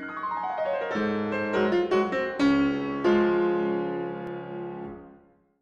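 Short piano jingle: a quick descending run of notes, then a few held chords that fade out near the end.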